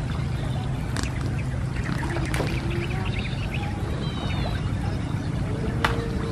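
Swamp-side outdoor ambience: a steady low rumble with faint chirping animal calls about two thirds of the way through and a few sharp clicks.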